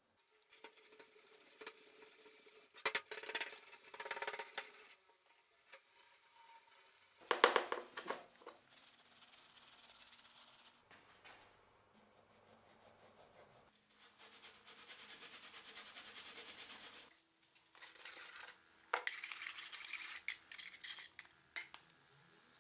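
Faint workshop handling sounds from a steel axe head: a cloth rubbing and wiping over the metal, with a few sharp clinks, in short passages that cut off abruptly.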